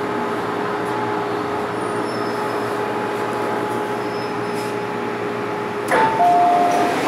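MTR Tsuen Wan Line M-Train braking to a stop in an underground station: steady rail running noise with a high, steady brake squeal in two tones. About six seconds in the squeal ends with a sudden sharp sound as the train stops, followed by a two-note falling chime.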